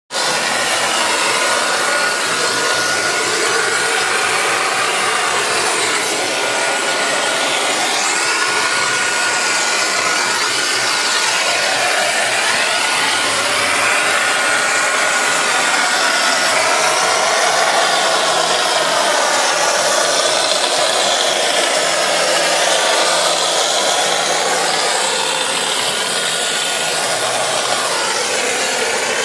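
Steady, loud rush of compressed air and render from the spray gun of a PFT Ritmo L plastering machine as it sprays a coat of Monorex render onto a wall, with a thin steady whine underneath through the first half or so.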